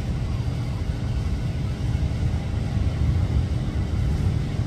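Boeing 777's twin turbofan engines at takeoff thrust, a steady low rumble as the airliner climbs away.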